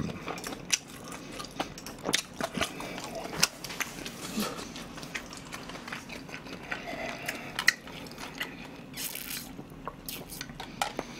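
Close-miked chewing of a mouthful of kimchi fried rice, with many small wet clicks and smacks. Near the end he takes a drink from a metal tumbler.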